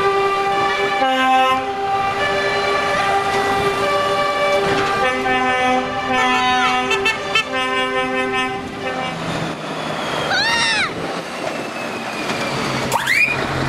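A truck's multi-note air horns sound long, loud chords for about nine seconds, the notes changing several times. After that a diesel engine runs, with two short rising-and-falling swooping tones near the end.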